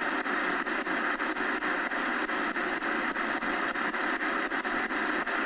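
Shortwave static hiss from the XHDATA D-901's speaker, tuned off a station, with a faint regular ticking about five times a second.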